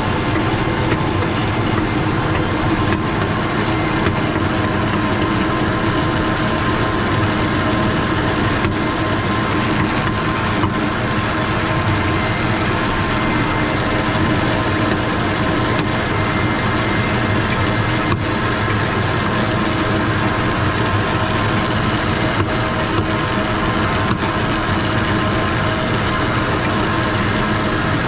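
Tractor engine running at a steady speed, with an even drone that does not change.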